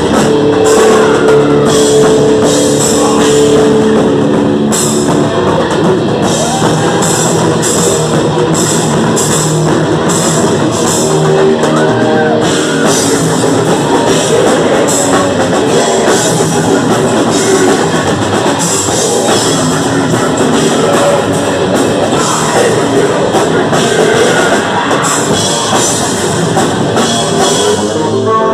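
Death metal band playing live: distorted electric guitar, bass guitar and drum kit, loud and dense.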